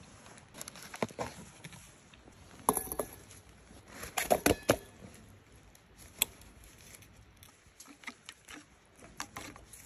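Plastic ready-meal packaging being handled, with scattered crackles and clicks, then a cluster of crinkles about four seconds in as a plastic soup cup is squeezed out into a metal pan. Faint chopstick clicks against the pan near the end.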